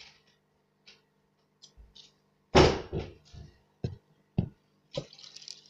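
A loud thunk about two and a half seconds in, followed by several shorter knocks that fade, with a few faint clicks before it and a faint hiss starting near the end.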